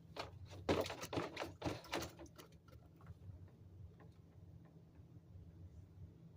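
A quick run of rustling, clattering knocks during the first two seconds or so, over a steady low drone that the uploader attributes to a grocery store exhaust vent about 300 feet away.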